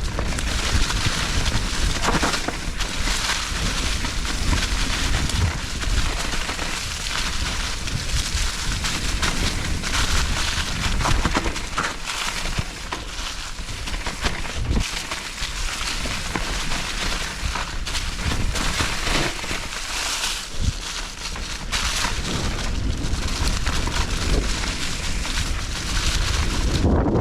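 Nukeproof Giga 297 enduro mountain bike riding a dirt trail, heard from a chin-mounted GoPro: a steady rumble and hiss of wind and tyres on the ground. Frequent knocks and rattles from the bike over bumps break through it.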